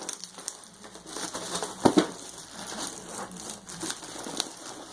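Packaging and a soft gun bag being handled, crinkling and rustling, with two sharp knocks close together about two seconds in.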